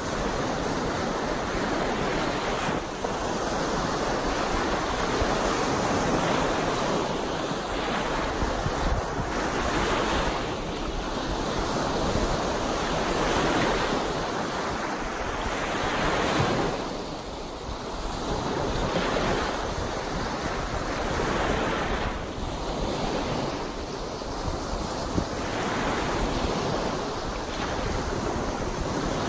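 Lake Superior's choppy, wind-driven waves breaking and washing onto the shore in continuous surf that swells and eases every few seconds, with wind buffeting the microphone.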